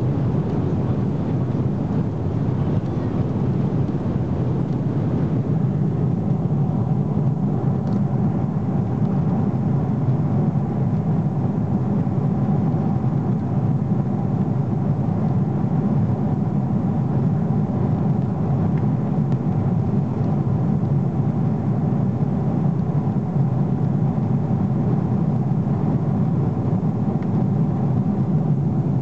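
Cabin noise of a Boeing 777-300ER in flight: a steady low roar of airflow and its GE90 engines, even throughout.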